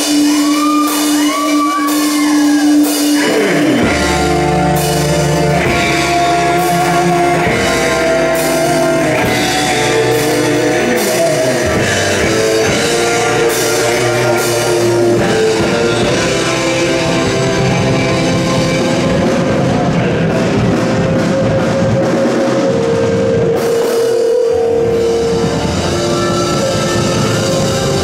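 Live rock band playing amplified: at first an electric guitar plays bending notes over a held note. The drum kit and bass come in about four seconds in, and the full band plays on, with a short break in the drums and bass near the end.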